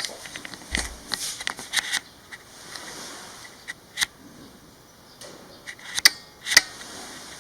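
Light rustling and a quick flurry of small clicks, then scattered sharp clicks; the two loudest come about half a second apart near the end.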